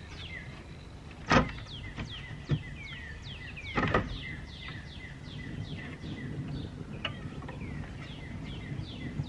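Wooden knocks and a short clatter as the console's panel and speaker are handled against the cabinet, the loudest a little over a second in and another around four seconds in. Through it a bird sings a run of short whistles, each falling in pitch, two or three a second.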